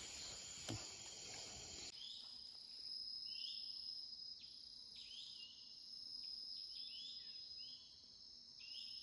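Night insects calling: a steady high trill with short rising calls repeating over it about once a second. Before that, in the first two seconds, a brief rustle with a click.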